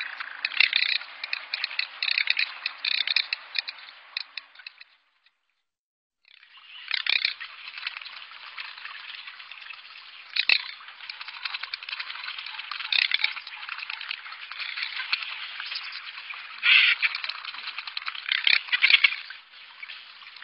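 Garganey drake calling: runs of dry, rapid rattling clicks, with louder bursts every second or so. The sound cuts out about five seconds in and starts again about a second later.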